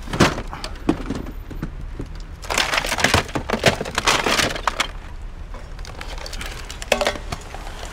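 Hard junk knocking, clattering and cracking as a rubbish pile is rummaged through: a sharp knock at the start, a dense run of cracks and knocks about two and a half seconds in, and another knock near the end.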